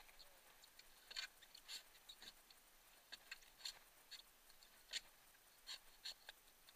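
Hand bilge pump being worked in a whitewater kayak's cockpit to pump out water: faint short clicks and squirts at uneven intervals, a few each second.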